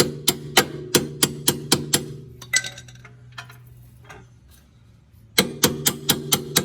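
Hand ratchet clicking in short, even strokes, about three or four clicks a second, as the nut is run onto the lower strut bolt; it stops for about three seconds in the middle and then starts again.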